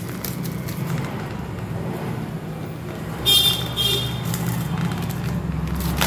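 Cling film being peeled off a plastic takeaway container, with two short crinkling rips a little past halfway, over a steady low hum.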